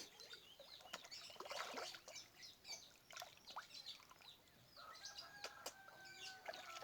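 Small birds chirping faintly and repeatedly, with light clicks in between. Near the end comes a held, slightly falling whistle lasting about two seconds.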